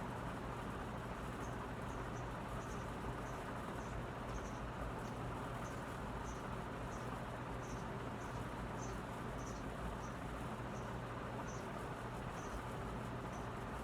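Dayton Lasko 56-inch commercial ceiling fan running steadily on its top speed, a constant motor hum under an even rush of moving air. A short high chirp repeats about twice a second behind it.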